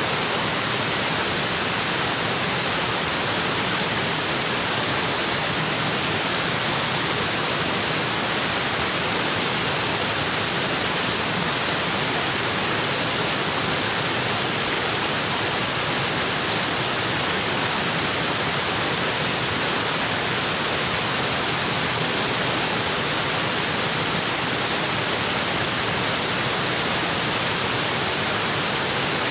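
Waterfall: water falling and splashing onto rocks in a steady, unbroken rush.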